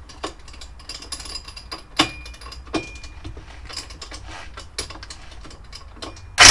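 Scattered faint clicks and small metallic knocks from handling tools on a clamped motorcycle fork leg. Right at the end, an electric impact wrench on the fork's bottom bolt suddenly starts running, loudly.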